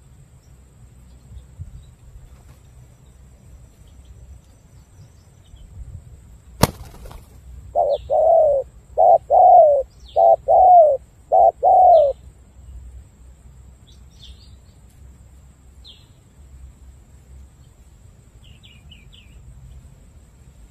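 Spotted dove cooing: about eight loud coos, each falling in pitch and grouped in short-long pairs, over about four seconds near the middle. A single sharp click comes just before them, and small birds chirp faintly throughout.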